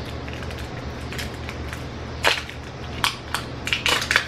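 Plastic wrapping crackling as it is peeled off a block of joined toffee candies: a few sharp crinkles about halfway in, then a quick bunch of them near the end.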